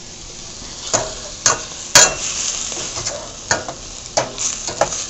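Meatballs and chopped onions sizzling in a stainless steel pot while a slotted spatula stirs them, scraping and knocking against the pot about six times, loudest about two seconds in.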